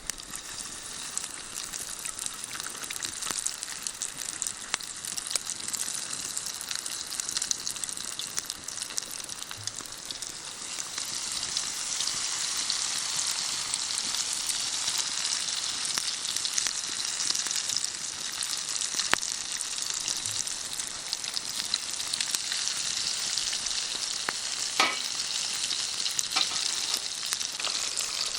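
Karaage chicken deep-frying in oil in an aluminium mess tin, a steady sizzle with small crackling pops that grows louder about eleven seconds in.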